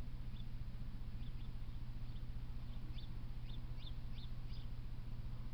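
A small bird gives a quick series of short, high chirps over a steady low hum, the chirps clustering around the middle.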